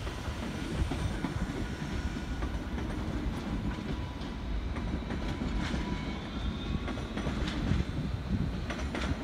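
Renfe Cercanías electric commuter train running along the tracks: a steady low rumble of wheels on rail, with scattered clicks and clatter over the rail joints.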